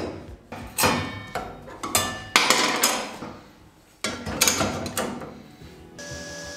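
Table-saw blade being changed: the steel circular saw blade and arbor parts clank and clink against the saw's metal table in a series of separate knocks with short ringing. About six seconds in, background music starts.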